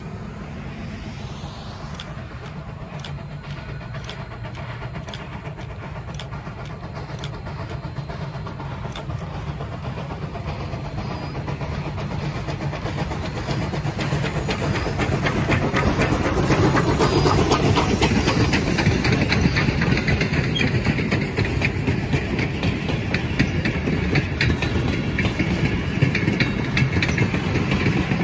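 Steam locomotive approaching and passing close by, growing steadily louder and loudest about 16 to 18 seconds in. It is followed by passenger coaches rolling past with a rapid clatter of wheels on the rails.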